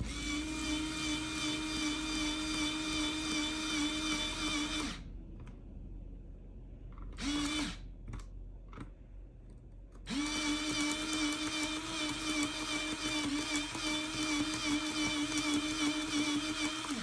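Electric pencil sharpener running as a Blackwing graphite pencil is sharpened: a steady motor whine that runs for about five seconds, stops, gives a short burst, then runs again for about seven seconds.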